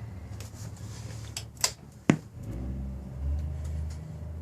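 Several sharp clicks of a motorcycle's key and handlebar switches, the loudest about two seconds in, followed by a low hum as the ignition is switched back on.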